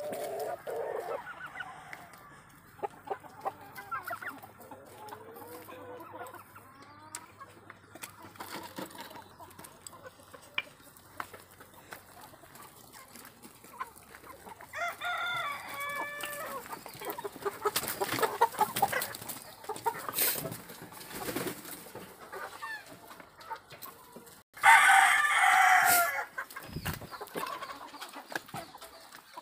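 A flock of free-range desi chickens clucking, with a rooster crowing loudly near the end.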